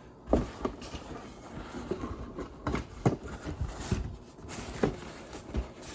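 Plastic model-kit parts and their bags being handled in the kit box: scattered light clicks and knocks with faint rustling.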